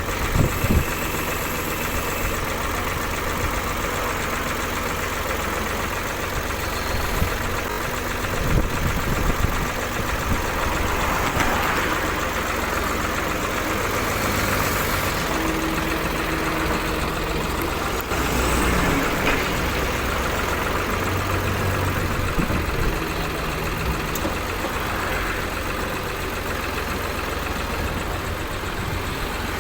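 An engine idling steadily, with a few knocks in the first ten seconds.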